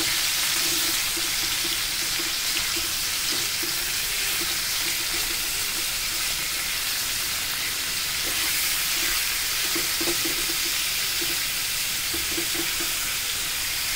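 Marinated chicken pieces sizzling steadily in hot oil in a kadhai over a medium-high flame, turned now and then with a silicone spatula, with a few faint ticks.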